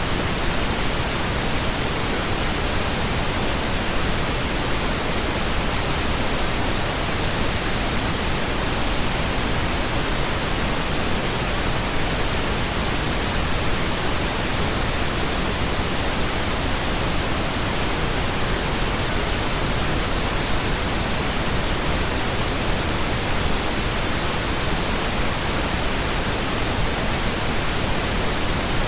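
Pink noise: a steady, unchanging hiss spread evenly across all pitches, with no breaks or events.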